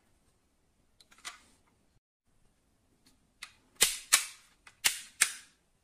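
Doors of a die-cast metal model off-roader being snapped shut by hand: a run of sharp clicks, four loud ones in the second half, each with a short metallic ring, after a few quieter clicks about a second in.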